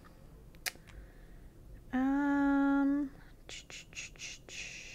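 A woman hums one steady held note for about a second, a thoughtful "mmm" while choosing. A few faint clicks and a soft rustle of handling follow near the end.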